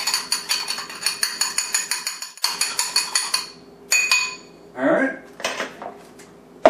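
Utensil rapidly beating egg and coconut oil in a small ceramic bowl: quick ringing clinks against the bowl that stop about three and a half seconds in. A single clink follows, and a knock near the end as something is set down on the counter.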